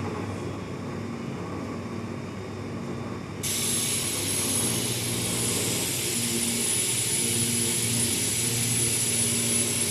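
Rubber kneader running with a steady low drone and a pulsing hum. About three and a half seconds in, a loud hiss of compressed air starts suddenly and holds steady, with a thin high whistle in it, as the pneumatic ram is driven down into the mixing chamber.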